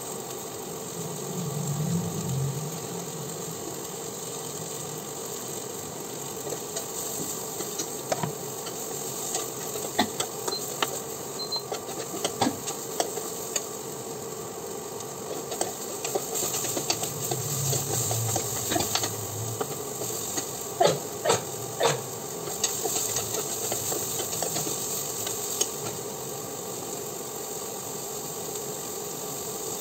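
Food sizzling in a frying pan, with a spatula clinking against the pan now and then and a quick run of sharp taps a little past two-thirds of the way through.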